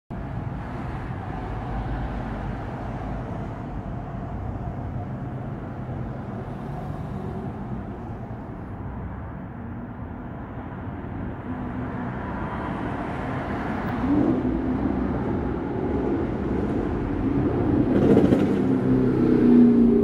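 Steady low background rumble, growing louder over the last several seconds.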